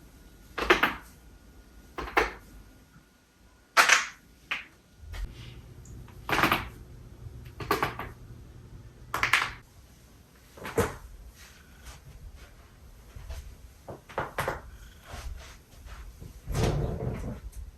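A person's joints cracking: a series of sharp pops, about a dozen, one every second or two, with a longer crack near the end.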